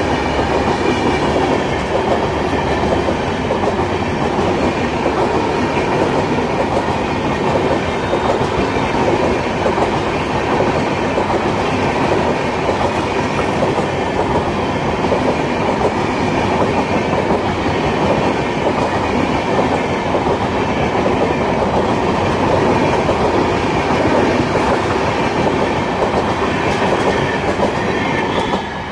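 Express passenger train's coaches passing at speed close by, wheels running loudly and steadily on the rails; the noise starts to fall off right at the end as the last coach, the luggage-brake van, goes by.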